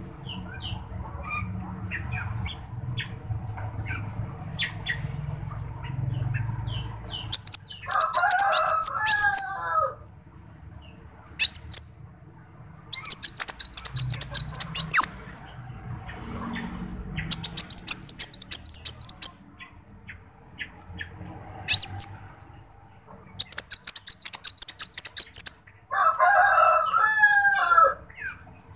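Kolibri wulung sunbird calling: loud bursts of rapid, high, chattering chirps, about six of them from about a quarter of the way in, each lasting one to two seconds with short pauses between. The first several seconds are quieter, with only faint ticks and small rustles.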